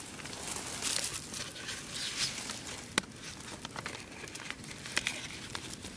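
Plastic wrapper of a packet of cookies crinkling and rustling as it is handled and opened, with two sharp clicks, about three and five seconds in.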